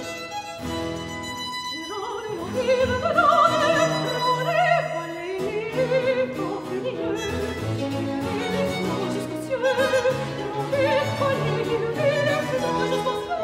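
Soprano singing a French Baroque cantata with wide vibrato, accompanied by a small Baroque ensemble of violin, viola da gamba and harpsichord.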